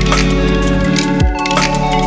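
Background music with a beat: deep drum hits under held chords, with lighter high percussion.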